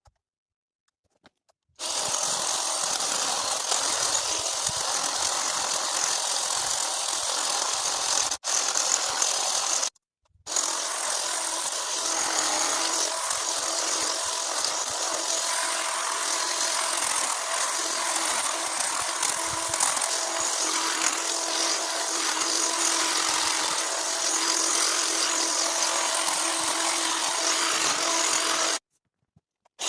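A small electric cutting tool's motor running steadily with a buzzing whir and a held hum, used for cutting back overgrown bush. It starts about two seconds in, cuts out briefly twice around eight and ten seconds in, and stops shortly before the end.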